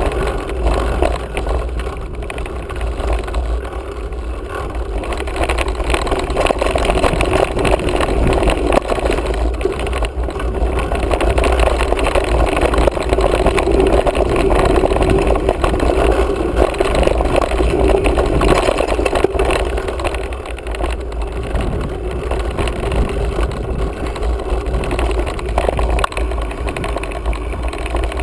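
Mountain bike ridden along a dry dirt trail: tyres rolling over packed dirt with occasional small rattles from the bike, under steady wind rumble on the camera's microphone.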